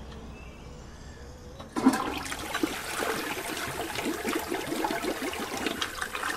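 Toilet flushing: a sudden rush of water starts about two seconds in and keeps going, churning unevenly.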